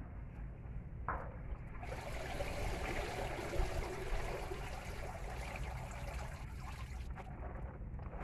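Plastic tarp and dry banana leaves rustling and crinkling as they are handled, a steady rustle for about five seconds starting about two seconds in, after a short sharp crinkle about a second in, over a low rumble.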